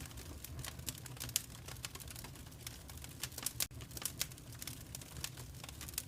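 Fire in a fireplace crackling: many small irregular pops and snaps, a few louder ones about a second and a half in and around three and a half seconds, over a low steady rumble.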